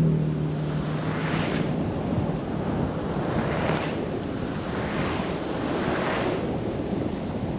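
Truck driving on a dirt forest road: a steady rush of tyre and road noise with wind, swelling and easing slightly. A low engine hum fades out in the first second.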